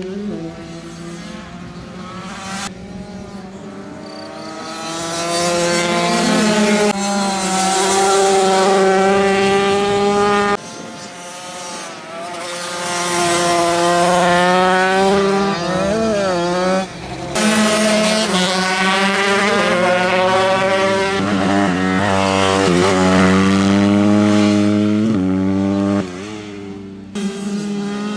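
Supermoto race motorcycles revving hard, the engine pitch climbing and dropping again and again as they accelerate and brake through the corners. The sound changes abruptly several times, from one bike or passage to another.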